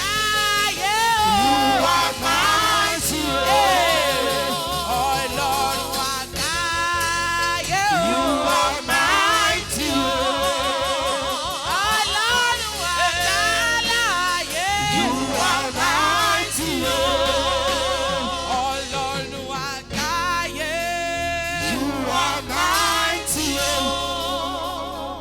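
Gospel choir singing with instrumental accompaniment, the voices held on long, wavering notes with wide vibrato. The music fades near the end as the song closes.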